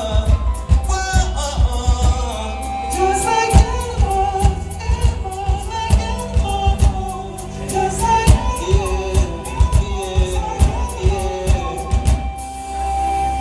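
Live band playing a pop-rock song: a male lead voice singing over a steady drum beat, electric bass and keyboards.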